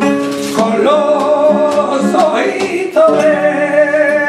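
A male flamenco singer sings a seguiriya in two long phrases of wavering, ornamented held notes, with a brief break near three seconds in. A flamenco guitar accompanies him with plucked strokes.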